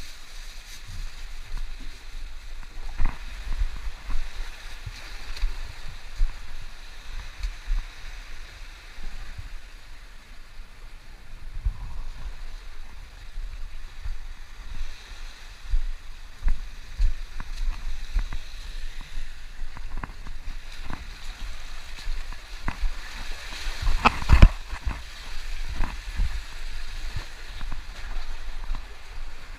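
Sea water washing and gurgling over a rocky reef shelf, with irregular low rumbling thumps and one louder burst about four-fifths of the way through.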